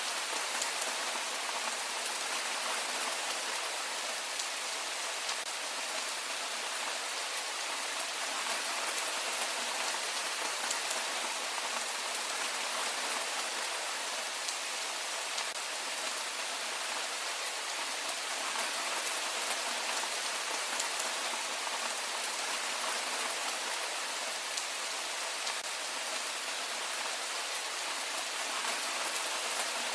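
Heavy rain falling steadily, an even hiss with faint ticks of single drops and little low rumble.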